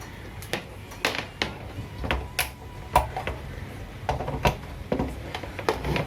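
Irregular clicks and knocks of hands handling a plastic emergency light and plugging in its charging cable to put it on charge.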